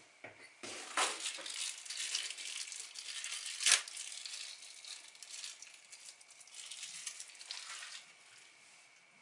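Plastic packaging crinkling and rustling as it is handled and pulled off a part, with one sharp crackle a little over three and a half seconds in; it dies away near the end.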